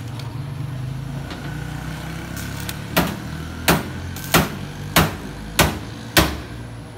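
A steady low electric buzz from the arc welding set, then from about three seconds in sharp metallic knocks, a hammer striking the steel about every 0.6 seconds, six times.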